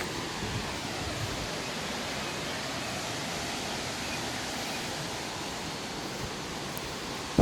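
Steady rushing of a waterfall, an even noise with no breaks.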